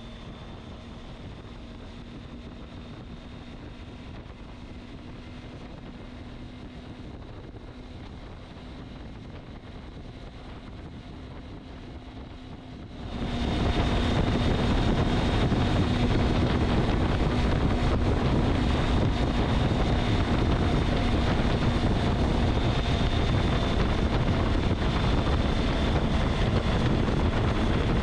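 A motor running steadily with wind rushing over the microphone; about 13 seconds in it suddenly gets much louder and stays that way.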